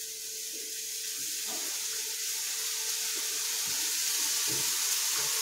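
Pineapple pieces sizzling in a very hot frying pan with a little sugar. It is a steady hiss that grows slowly louder, with a few faint pops.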